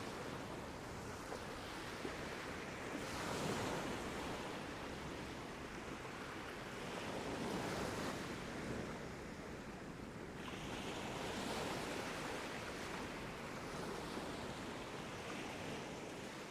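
Sea waves washing onto a beach, the surf swelling and ebbing about every four seconds.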